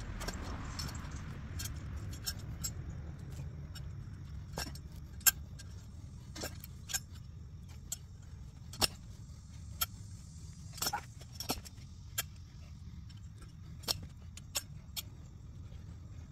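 Sharp metal clicks and clinks at irregular intervals, about a dozen in all, as a long-handled steel turf tool is worked into the soil. They sit over a steady low rumble like distant road traffic.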